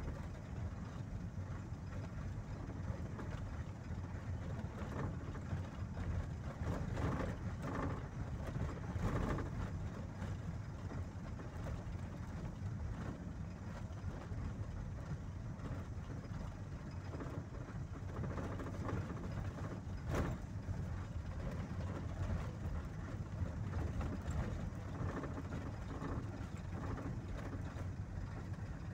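A vehicle driving along a paved road, heard from inside the cab: a steady low rumble of engine and tyres, with a sharp knock about twenty seconds in.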